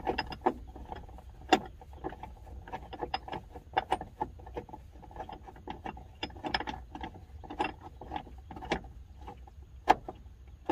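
A 3/16 Allen key turning in the top bolt of an aluminum grab handle, making irregular small metal clicks and ticks with a few sharper clicks among them. The key sits loose in the bolt head and moves around as it turns, which the installer takes to mean it may be the wrong, non-metric size.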